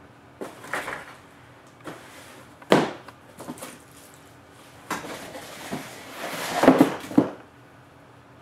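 Handling noises of a foam carry case and a large RC model truck being lifted out, set down and moved on a workbench: a run of scuffs and bumps, with a bump about three seconds in and a longer burst of scraping and rustling near the end.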